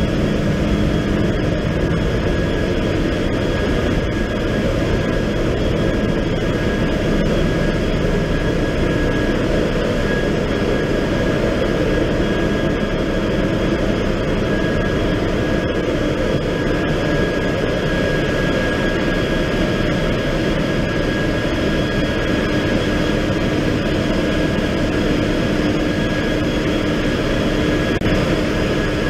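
Loud, steady din of a cargo ship's engine room: engines and machinery running, with a low hum and a high steady whine over the noise.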